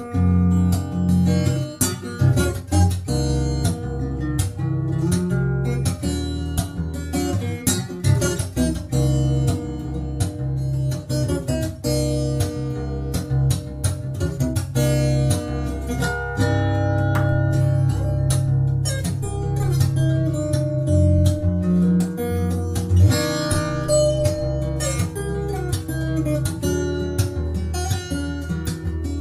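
Yamaha FS800 steel-string acoustic guitar played fingerstyle: a plucked melody in the treble over a steady, continuous bass line.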